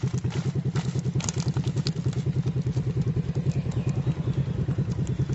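A small engine running steadily with an even, rapid chugging beat, about ten beats a second. A few light clatters about a second in come from small fish being shaken out of a woven bamboo trap into a plastic basket.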